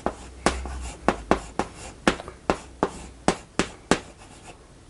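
Chalk tapping and scraping on a blackboard as characters are written stroke by stroke: a quick run of sharp taps, about three a second, that stops shortly before the end.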